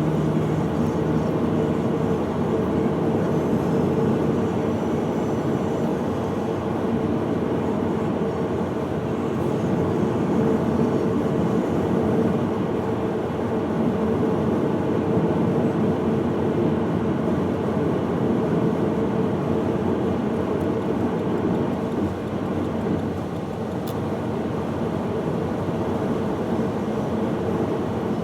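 A vehicle running steadily under way, its engine and road noise an even rumble with a faint steady hum.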